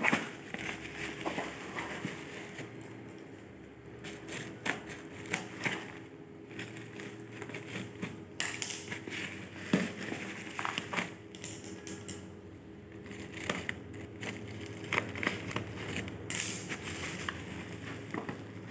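Watch packaging being handled: plastic wrapping crinkling and crackling, with scattered small clicks and knocks.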